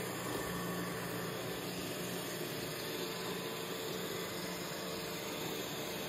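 Roomba robot vacuum running: a steady whir from its fan and brushes, with a faint low hum.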